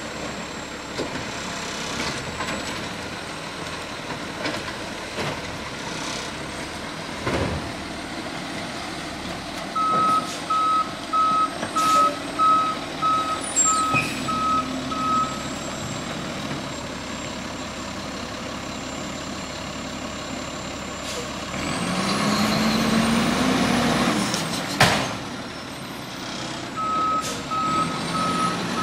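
Garbage truck running at the curb, its backup alarm beeping in a steady series about ten seconds in and again near the end. In between, the engine rises for a few seconds with a whine, then a single loud bang.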